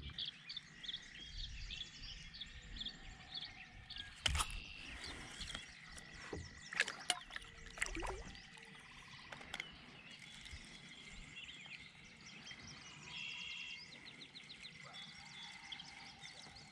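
Outdoor ambience on open water: small birds chirping and calling throughout, with a faint steady high tone and a few short soft knocks spread through the middle.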